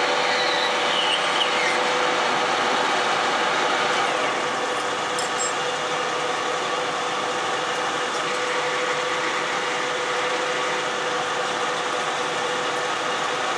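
Metal lathe's drive running with a steady mechanical hum. In the first two seconds a faint whine falls in pitch as the chuck spins down, and the loudness dips slightly about four seconds in while the drive keeps humming.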